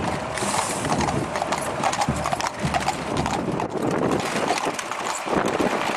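Hooves of a pair of horses clip-clopping on a concrete road as they pull a horse-drawn fire engine past at a walk.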